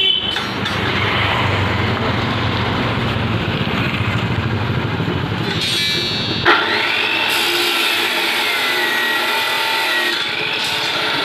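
Abrasive cut-off saw switched on about two-thirds of the way in: the motor spins up with a rising whine, then the disc runs steadily, grinding through a bundle of steel rebar. Before that there is only a steady background hum.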